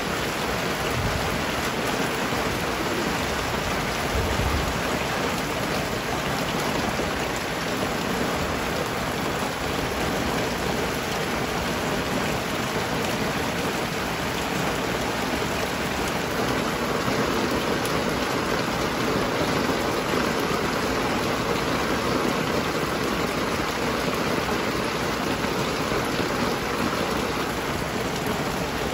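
Steady rain falling, a continuous even hiss with no break.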